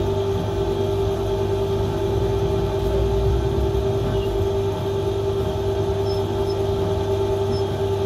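Steady mechanical hum with a constant mid-pitched drone over a low rumble, unchanging throughout.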